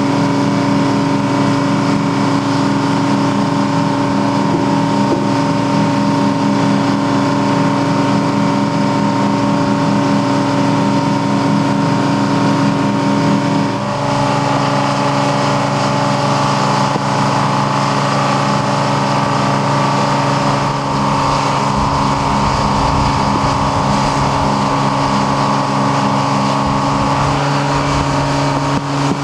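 Steady drone of a travel lift's engine running while it lowers a tug into the water, holding several steady tones; the pitch shifts abruptly about halfway through, and a low rumble joins in the second half.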